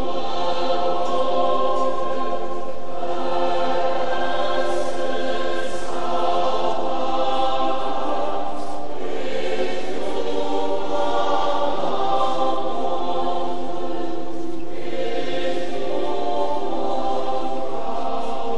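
A large crowd of pilgrims singing a hymn together, in phrases a few seconds long.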